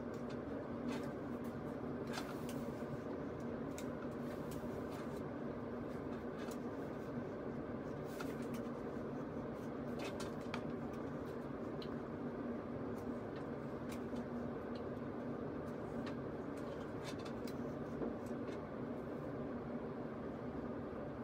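Steady low hum of room noise, with scattered faint clicks and rustles as a flat iron is clamped and drawn through hair.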